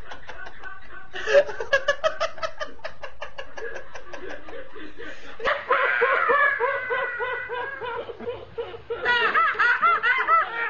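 People laughing uncontrollably over a Skype webcam call. First one person gives fast, rhythmic, high-pitched bursts of laughter. About five seconds in, a second person takes over with squealing laughs that rise and fall in pitch, getting bouncier near the end.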